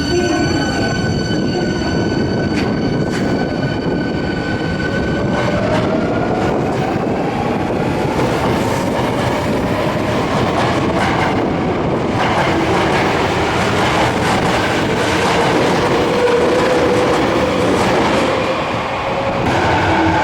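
Subway train pulling out of an underground station: wheels rumbling and clattering on the rails, with the motor whine rising slowly in pitch twice as it picks up speed.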